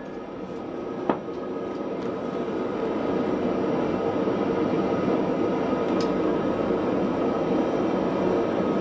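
A single hammer knock about a second in, then the steady rushing noise of a forge running, which swells over the next couple of seconds and holds level.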